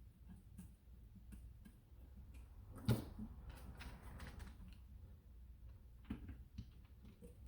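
Small plastic parts being handled on a desk: scattered light clicks and taps, with one sharper knock about three seconds in and a couple more near six seconds.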